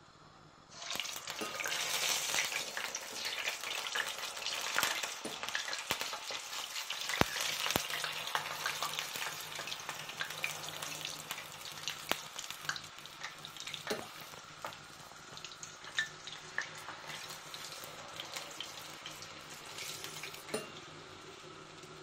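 Lokma dough balls frying in hot oil, sizzling with many small crackles. The sizzle starts about a second in as dough drops into the oil, is loudest over the next few seconds, then gradually eases.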